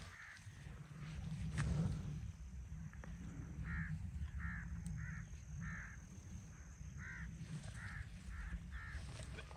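Crows cawing: one short call near the start, then two runs of short caws, about two a second, from about four seconds in. A steady low rumble runs underneath.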